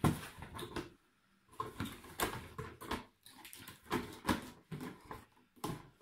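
Handling noise: objects, including the humidifier's cardboard box, being picked up, moved and set down on a cloth-covered table. It comes as several bursts of rustles and soft knocks, with short pauses between them.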